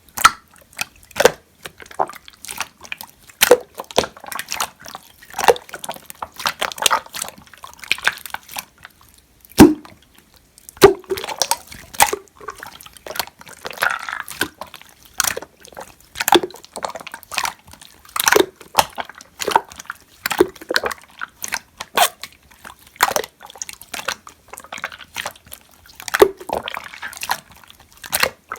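Clear slime being squished and pressed by hand, giving a run of irregular pops and clicks, several a second, some much louder than others.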